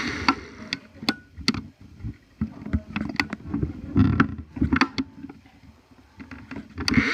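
Irregular clicks, knocks and soft thumps close to the microphone, a few a second, easing off briefly just before the end: the handling and movement noise of a handheld camera.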